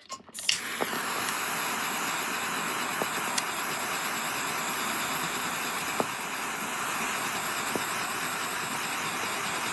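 Small handheld electric heat gun blowing hot air onto heat-shrink tubing: a steady rush of air with a faint motor hum, switched on just after the start and cut off near the end.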